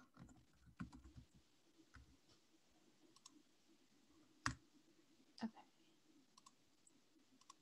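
Near silence broken by a handful of faint, scattered clicks, the sharpest about halfway through.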